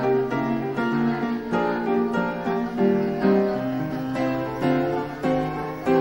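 Background music: a plucked guitar playing a run of single notes.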